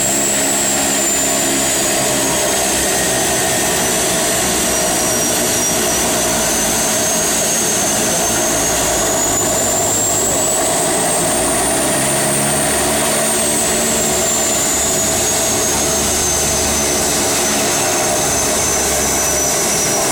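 De Havilland Canada Twin Otter floatplane's PT6A turboprop engines running at low taxi power, a loud steady drone with a high turbine whine that drifts slowly up and down in pitch.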